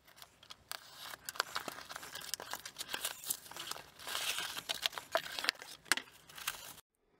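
A cardboard shipping box being opened by hand: a utility knife slits the packing tape, then the flaps are pulled open and crumpled paper packing is pushed aside, with much crinkling and rustling and many small clicks and scrapes. It stops abruptly near the end.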